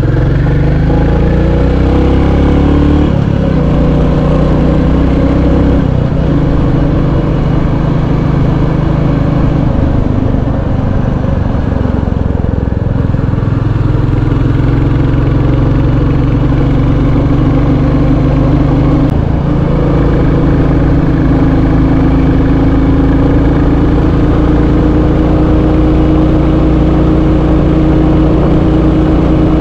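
Royal Enfield single-cylinder motorcycle engine running under way, its note rising as it accelerates near the start and again about twenty seconds in, then holding steady at cruising speed, over steady road noise.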